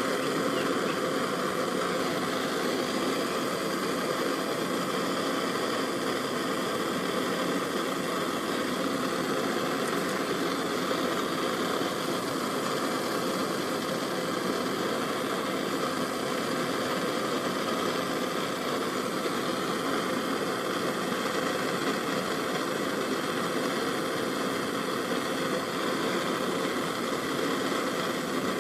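Gas torch flame burning with a steady hiss while it heats a ring terminal on heavy power wire to melt solder into it.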